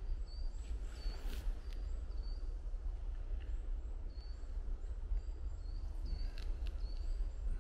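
A small bird calling over and over with short high chirps, roughly one or two a second, pausing for a moment midway, over a steady low rumble. A few faint clicks are mixed in.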